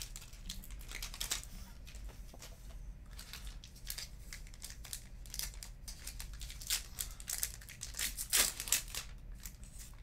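Trading card packaging, plastic or foil wrap, crinkling and tearing in short irregular rustles, loudest near the end.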